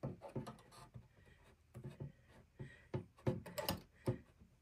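Light plastic clicks and taps, irregular and a few at a time, as the removable superstructure section of a 1/144 scale RC destroyer model is handled and seated back onto the hull.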